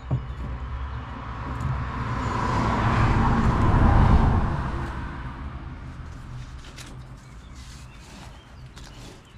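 A car driving past: its noise swells to a peak about four seconds in, then fades away.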